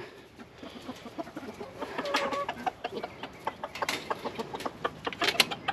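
Chickens clucking softly while they feed on tossed lettuce seedlings. There are scattered short clicks and rustles of pecking and scratching in straw bedding, and one short call about two seconds in.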